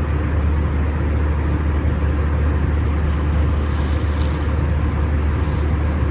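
Steady low drone of an airliner cabin in flight: engine and air noise with a strong low hum, unchanging in level.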